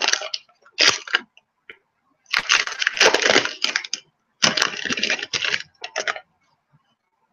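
Foil-plastic wrapper of a baseball card pack crinkling as it is torn open and pulled off the stack of cards, in several bursts of crackling with short pauses between.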